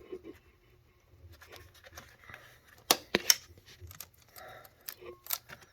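A hand tool prying and working at a stubborn fuel hose fitting on the high-pressure fuel pump. Soft scraping and handling noise is broken by a quick cluster of sharp metallic clicks about three seconds in and another click near the end.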